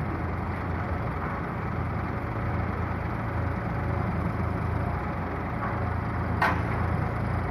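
Yanmar ViO35 mini excavator's diesel engine running steadily as its boom and bucket move on a dump truck bed. One short, sharp metallic sound comes about six and a half seconds in.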